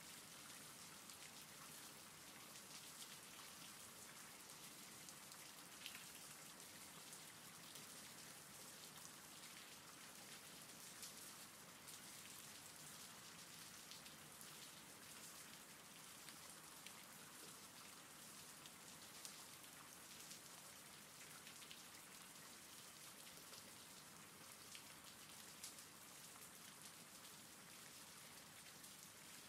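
Faint, steady rain falling, with separate drops ticking now and then.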